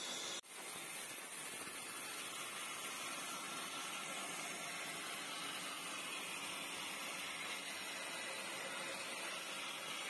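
Old bandsaw blade cutting through a big dry log, a steady hissing rasp that stays even throughout. It briefly drops out about half a second in.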